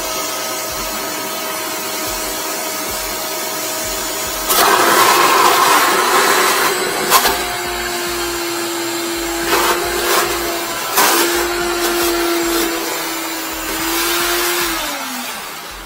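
Wet-dry vacuum running with its hose down a blocked toilet, sucking out water and waste. From about four and a half seconds in it gets louder and rougher for a couple of seconds as it slurps water, with a few sharp knocks after that.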